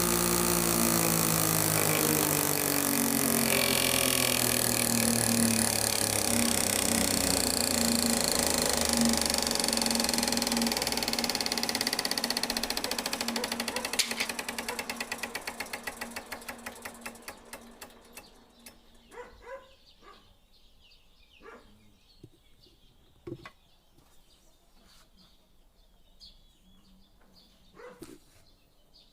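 A woodworking power tool's motor spinning down after being switched off: a steady machine sound whose pitch falls over about eighteen seconds, ending in a slowing, fading ticking. After that come a few scattered light knocks.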